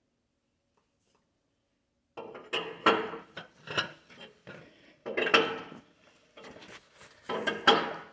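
Irregular metallic clanking and scraping of heavy tractor parts and tools being handled, starting about two seconds in as a string of short bangs and rattles, several of them loud.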